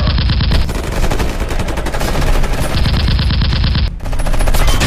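Rapid machine-gun fire sound effect, an unbroken stream of fast shots that stops for an instant just before four seconds in and then carries on.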